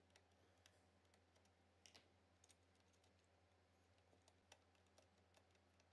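Near silence with a few faint, scattered clicks of plastic cable plugs being worked loose and pulled from a 3D printer's mainboard.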